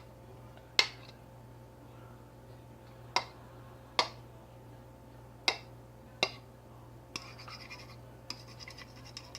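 A fork tapping sharply against a bowl five times, then scraping and rubbing around the bowl, as raw eggs are broken up and their yolks crushed for scrambling.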